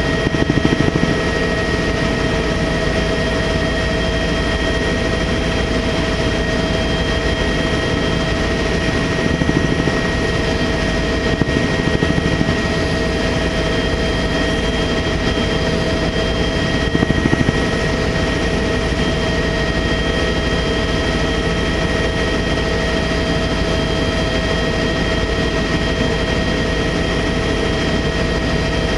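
Helicopter in flight: a steady, loud drone of turbine engine and rotor with a constant high whine over it.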